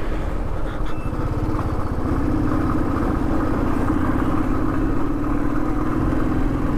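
Motorcycle engine running while the bike is ridden along, a fast steady exhaust beat under road and wind noise, with a steady hum setting in about two seconds in.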